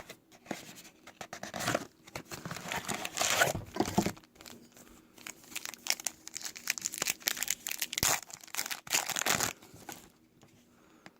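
Trading-card packaging, a Topps WWE Raw 2019 blaster box and its packs, being torn open and crinkled by hand in uneven bursts, with the loudest tearing about two to four seconds in and again near nine seconds. It stops about ten seconds in.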